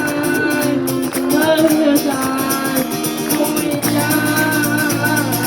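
Live band playing an upbeat pop-reggae song, with a steady bass line and a shaker or tambourine ticking evenly, while voices sing the chorus along with it.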